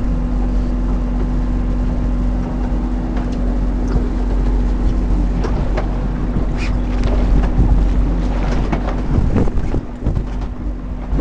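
Boat engine running steadily with a constant low drone, with wind on the microphone and a few light knocks in the middle.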